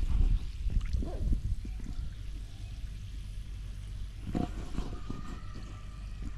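Fulljar soda fizzing and sloshing in a plastic cup, over a steady low rumble of wind on the microphone.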